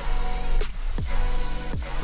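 Background electronic music: a held chord over deep kick drums that drop in pitch, about one a second.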